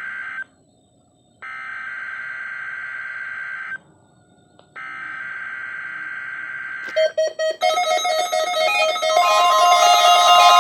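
EAS SAME header data bursts on NOAA Weather Radio: the end of one burst and then two more buzzy digital screeches, each a little over two seconds with a second of silence between. About seven seconds in, a loud alert tone made of several pitches starts, and a steady warning alarm tone joins it and grows louder near the end.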